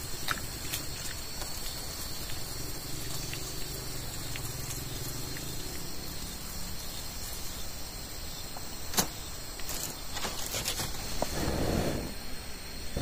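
Steady high-pitched insect buzz, with scattered clicks and a couple of bursts of rustling and scraping near the end as dry sticks and a stone are handled.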